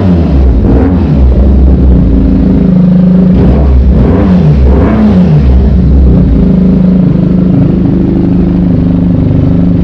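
Benelli 302R's parallel-twin engine running through a stainless slip-on exhaust. It is blipped a few times a few seconds in, the revs rising and falling back, then settles to a steady idle.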